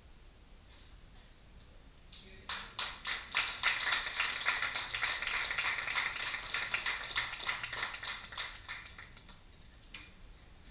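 A small audience applauding: the clapping starts about two and a half seconds in, swells, then dies away a few seconds later.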